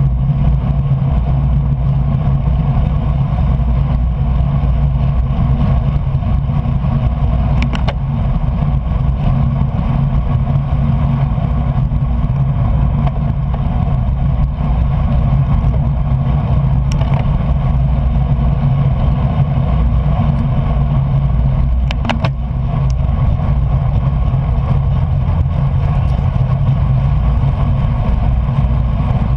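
Steady rush of wind and tyre noise from a racing bicycle moving fast on wet road, deep and heavy in the low end. A few sharp clicks break in now and then.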